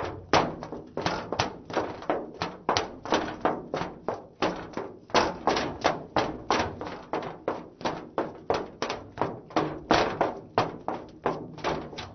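A woman's heeled shoes running on a metal surface: quick, sharp footfalls, about three a second, with no breaks.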